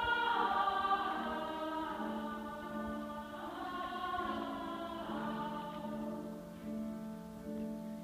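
Women's choir singing sustained chords, with some voices sliding up and down in pitch partway through.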